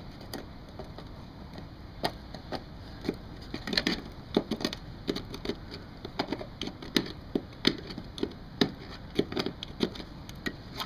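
Old, heat-softened caulking being scraped and picked off the seam of a metal eavestrough with a hand tool. Irregular sharp scrapes and clicks, several a second, start about two seconds in.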